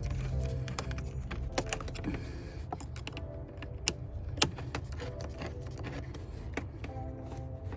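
Irregular metallic clicks and taps as a flathead screwdriver works loose the hose clamps on a pickup's stock air intake tube.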